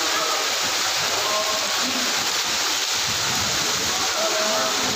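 Torrential monsoon-style downpour falling on a flooded courtyard: a dense, steady hiss of raindrops splashing onto standing water.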